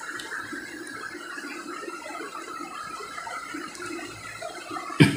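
Marker pen scratching across chart paper pinned to a wall as words are written, an uneven continuous scraping. A single sharp knock sounds near the end.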